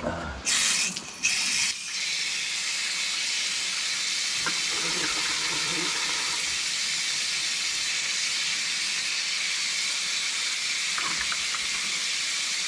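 Water running steadily from an outdoor wall tap into a tiled washing trough as someone washes their face, with louder splashing in the first couple of seconds.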